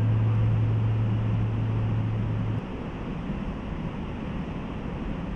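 Steady rushing noise of a waterfall. A loud low hum also runs for the first two and a half seconds and cuts off suddenly.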